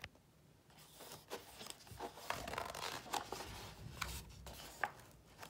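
A page of a picture book being turned by hand: paper rustling and sliding in short scrapes, with a sharp tick near the end.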